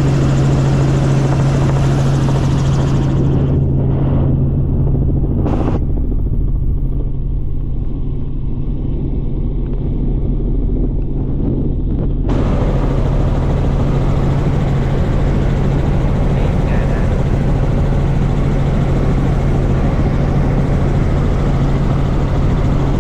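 Steady in-flight cabin noise of a light helicopter: a loud low hum from the rotor and engine under a constant rushing hiss. From about three seconds in the hiss goes muffled, and it comes back abruptly at about twelve seconds.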